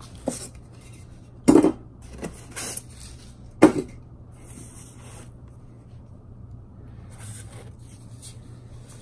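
Packaging of a boxed vinyl figure being handled: the cardboard box and its foam insert are knocked and scraped, with two sharp knocks about a second and a half and three and a half seconds in, and lighter rustles of the plastic wrapping in between, over a low steady hum.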